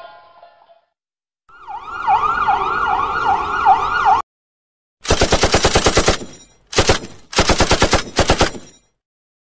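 An electronic siren whooping in quick rising-and-falling sweeps, about three a second, which cuts off abruptly. After a short pause come three bursts of rapid machine-gun fire, about ten shots a second.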